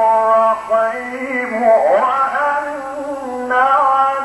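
A male Quran reciter chants in the melodic mujawwad style: long held notes that waver and slide in pitch, with no accompaniment.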